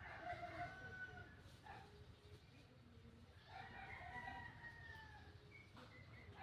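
A rooster crowing faintly twice, the second crow longer and drawn out.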